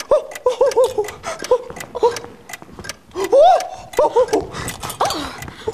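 A clock ticking, several ticks a second, with short pitched vocal sounds that rise and fall over it.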